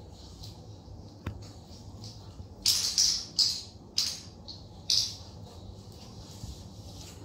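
Wooden alphabet puzzle pieces and board clattering as a toddler handles them: a single click, then a cluster of five short rattling bursts over about two seconds.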